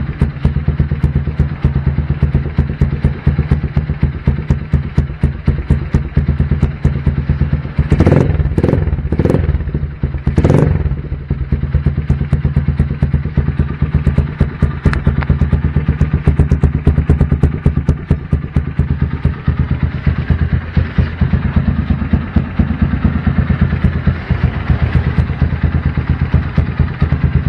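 Motorstar Z200 motorcycle engine idling through an aftermarket Akrapovic slip-on muffler and big elbow with no silencer insert fitted, a steady, rapid exhaust pulse. About a third of the way through, the throttle is blipped three or four times in quick succession before it settles back to idle.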